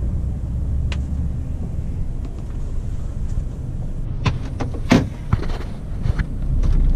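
Truck engine running with a low, steady rumble, with a few sharp clicks and knocks partway through, the loudest about five seconds in.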